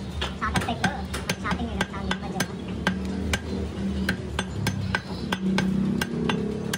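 A chopping knife striking chicken meat and bone on a wooden log chopping block: a run of sharp, uneven chops, about two or three a second.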